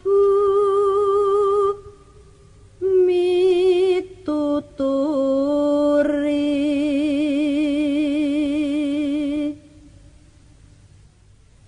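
A woman's voice singing slow, drawn-out phrases without accompaniment, each held on long notes with a wavering vibrato. The last phrase is held for about four seconds, and then the voice stops near the end.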